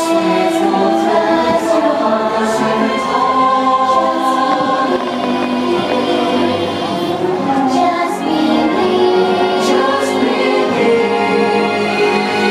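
Fireworks-show soundtrack music: a choir singing sustained lines over the musical accompaniment.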